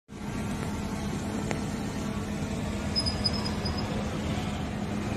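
Steady background rumble with a constant low hum, during a hush with no voices. It cuts out for an instant at the very start, and a faint high chirp comes about three seconds in.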